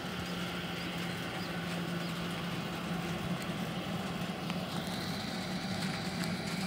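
Jet airliner's engines running at low power as it taxis, a steady hum, with a faint high whine coming in about five seconds in.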